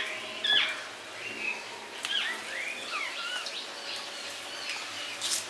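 Small birds chirping repeatedly in short rising and falling calls, over a steady faint sizzle of hot oil frying cabbage batter balls, with a few sharp clicks, the loudest about half a second in.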